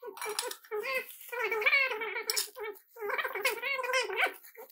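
Baby monkey crying in repeated high, wavering calls, in bursts of about a second, with a sharp clink or two of metal pots.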